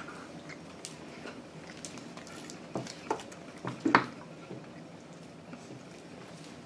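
A few light taps and soft rustles of a crumbling peanut candy bar being handled at a table, in a small quiet room; the loudest tap comes about four seconds in.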